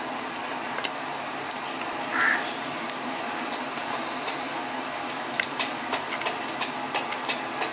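Batter-coated bread deep-frying in hot oil in a kadai: a steady sizzle with scattered crackles and pops. There is one brief higher sound about two seconds in.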